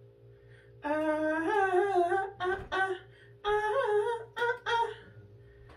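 A woman humming a tune in two short phrases of held, gliding notes, starting about a second in.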